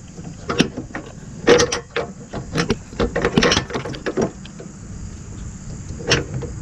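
Channel-lock pliers working an IRS subframe bushing support collar onto a rubber subframe bushing: irregular metal clicks, taps and scrapes in small clusters.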